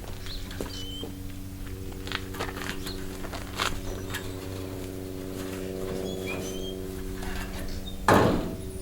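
Ford 8N tractor's four-cylinder flathead engine running steadily, with scattered clicks and knocks and a loud rattling clunk about eight seconds in.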